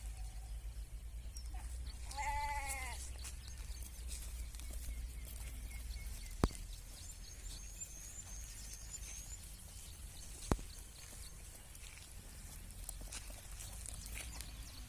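A sheep bleats once, about two seconds in, a single wavering call. Two sharp clicks follow later, over a steady low rumble.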